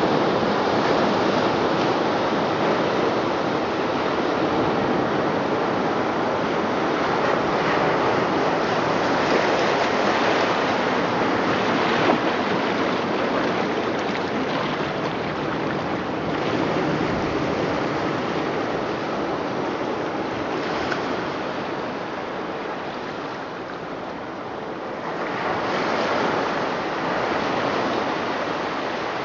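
Ocean surf: waves washing in slow swells, with a louder surge near the end.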